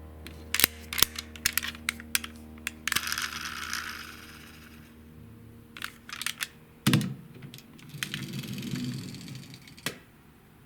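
Small plastic toy cars being handled: irregular sharp clicks and knocks with two short spells of rustling and rattling, and a heavier knock about seven seconds in.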